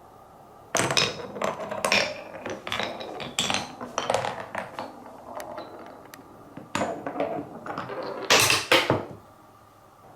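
Marbles rolling and clacking through a wooden Cuboro marble run: a quick series of knocks and clicks with a rattle between them, starting about a second in. The loudest hits come near the end, then it stops.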